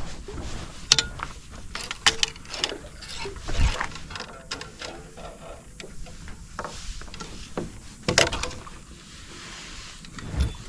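Fishing reel being cranked, with irregular clicking and knocks from the reel and rod handling, as a heavy hooked turtle is reeled in.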